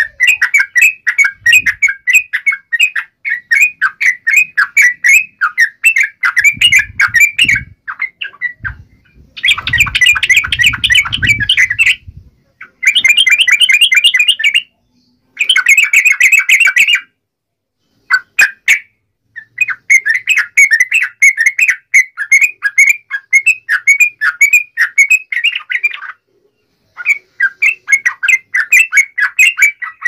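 Yellow-vented bulbuls (trucuk) calling in fast, loud runs of short chattering notes, in several bursts with short pauses, as in a fighting exchange between birds. A low rumble sits beneath the calls for a few seconds near the middle.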